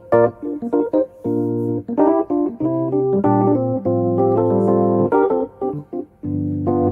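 Instrumental background music on a keyboard instrument, short repeated notes alternating with held chords over a bass note.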